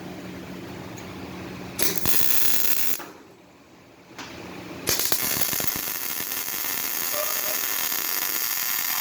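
A steady low hum, then a MIG welding arc from a Devam MIG 250 A welder starts about two seconds in with a loud crackling hiss. It breaks off for about a second, restarts, and from about five seconds in burns steadily as a bead is laid.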